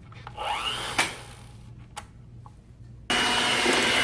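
Clicks and handling noise as an electric mixer is readied, then the mixer switches on suddenly about three seconds in and runs steadily with a whine at medium-high speed, beating cream cheese and whipped cream together.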